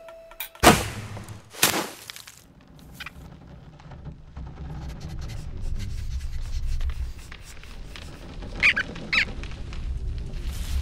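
Animated-film sound effects: two sharp snaps about a second apart, then a low rumble that slowly builds, with two short squeaks near the end.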